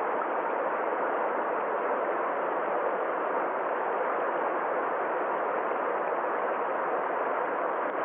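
Small rocky stream pouring over a low cascade: a steady, unbroken rush of flowing water.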